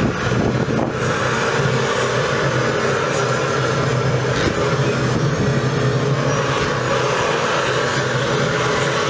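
Handheld propane torch running steadily, its flame aimed into the firewood in a smoker's firebox to light the fire.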